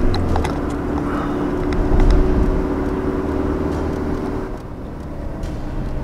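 Car engine and road noise inside the cabin while driving, with a steady engine hum that fades out about four and a half seconds in. A few faint clicks come in the first two seconds.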